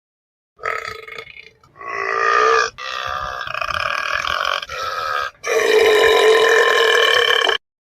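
A series of about five long, drawn-out burps with brief gaps between them; the last, about two seconds long, is the loudest and stops suddenly.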